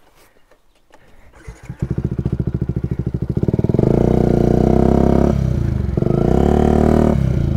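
Yamaha WR125X's single-cylinder four-stroke engine, fitted with an aftermarket Exil half exhaust, starting about two seconds in and idling with an even beat. It is then revved up twice and drops back to idle near the end.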